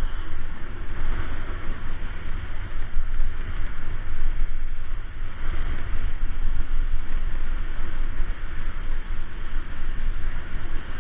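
Wind buffeting the action camera's microphone during a fast snowboard descent, a steady low rumble, with the board sliding and scraping over groomed snow.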